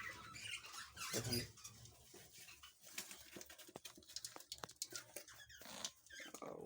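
Faint scattered ticks and scratchy rustles from Java sparrow chicks being handled for hand-feeding.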